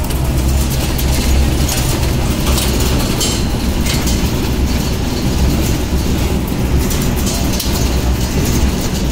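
Steady engine and road noise inside a car's cabin while driving at speed: a constant low rumble with a hiss of tyre and wind noise over it.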